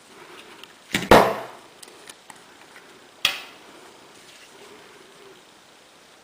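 Sharp knocks of field-stripped Ruger SR9 pistol parts being handled and set down hard during cleaning: a doubled knock about a second in, then a single one about three seconds in, each ringing out briefly.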